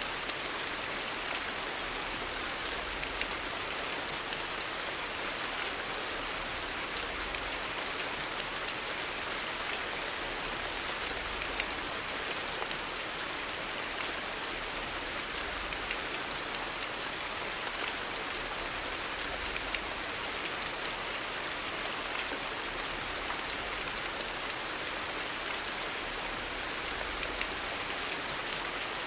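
Steady rain falling on hard street surfaces: an even hiss flecked with small drop ticks.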